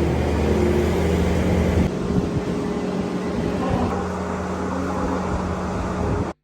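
Farm machinery engine running steadily at an even pitch, with a hiss over it. It cuts off suddenly near the end.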